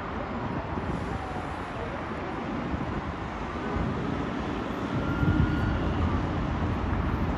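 Distant wash of city traffic from a busy avenue far below, a steady hum of many vehicles, with a low rumble growing louder about five seconds in.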